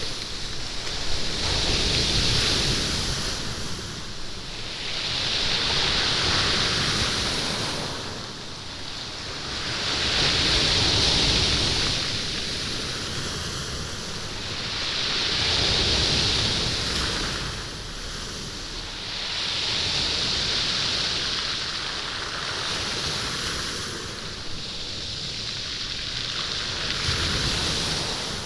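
Sea waves washing up a stony beach and drawing back, rolling and rattling the beach stones. The noise swells and ebbs about every four to five seconds, with a hissing, clattering rush at each wave.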